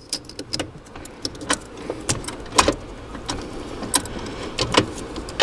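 Plastic wiring-harness connectors of a liftgate motor being handled and pushed into their sockets: an irregular run of small clicks and rattles, with a few sharper clicks among them.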